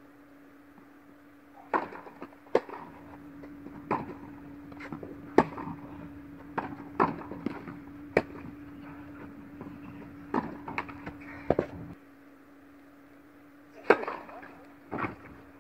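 Tennis rally: sharp racket strikes on the ball and ball bounces, spaced about a second or more apart, ringing in a large indoor hall. Under them runs a steady hum that cuts off about twelve seconds in.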